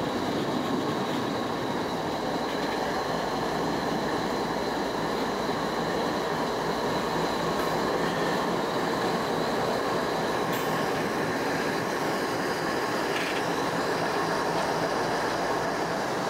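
CN diesel freight locomotives moving slowly past at close range, engines running with a steady drone and a thin, steady high whine on top.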